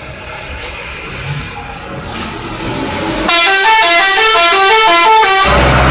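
A bus's 'telolet' musical air horn plays a fast stepping melody of tones for about two seconds, starting about three seconds in, over the bus's engine running. It gives way to a loud rushing noise with a low rumble near the end.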